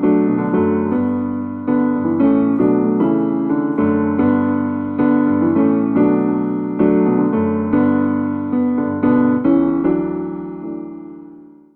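Yamaha MM6 synthesizer playing an electric piano voice: chords with a melody of struck notes on top, the last chord held and fading away near the end.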